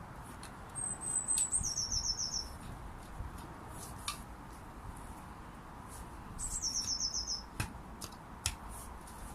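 A small songbird singing the same short phrase twice, a few seconds apart: a thin high note followed by a quick trill of about seven notes. A few faint clicks in between.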